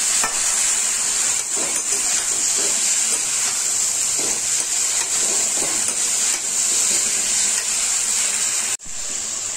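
Drumsticks, potatoes and tomatoes in masala frying in a kadhai with a steady sizzle, a metal spatula stirring and scraping the pan now and then. The sound cuts out for an instant near the end.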